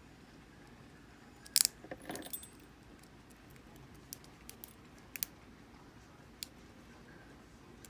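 Lock picks and tension wrench worked in a Brinks solid-brass padlock. A brief metallic jangle and rattle comes about one and a half seconds in, then scattered light clicks.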